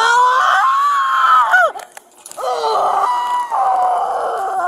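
A woman screaming: two long, high-pitched screams with a wavering pitch, broken by a short pause about two seconds in.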